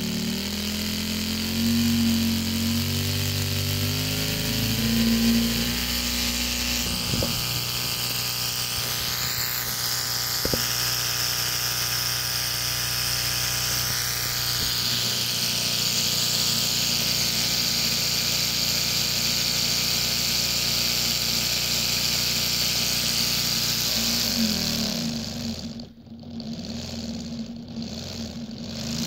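A Lego V6 engine model running, giving a continuous engine-like hum. Its pitch shifts up and down over the first few seconds, then holds steady, and it dips briefly near the end.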